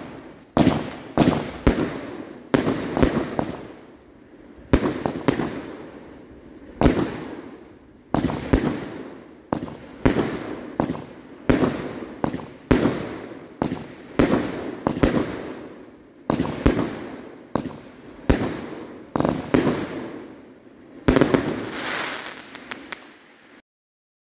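Volcano 'Noche de Estrellas' 19-shot consumer fireworks cake firing its shots one after another. Sharp bangs come roughly every second, some in quick pairs, and each fades out before the next. The firing stops abruptly near the end.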